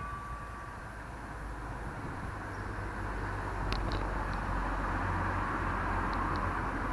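Road traffic: a vehicle's engine and tyre noise swell over the first three seconds and then hold steady. The last ringing tone of a bell dies away in the first second.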